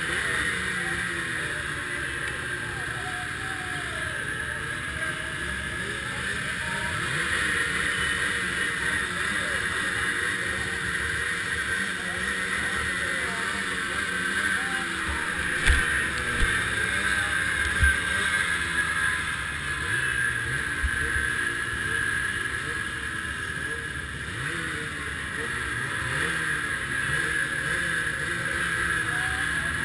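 Snowmobile engines running at low speed, their pitch wavering up and down, over steady wind hiss on the helmet microphone. A few sharp knocks come about halfway through.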